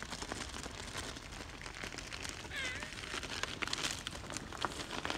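Faint scraping hiss of a sled sliding down a snowy street, growing slightly louder toward the end, with a child's short high-pitched call about two and a half seconds in.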